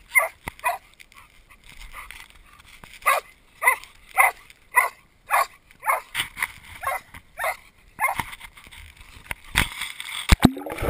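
A dog barking in a quick run of about ten short barks, roughly half a second apart, while playing. Near the end, water splashes and sloshes at the microphone as the camera goes into the water.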